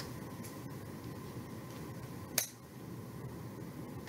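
Quiet room tone with one short, sharp click about two and a half seconds in.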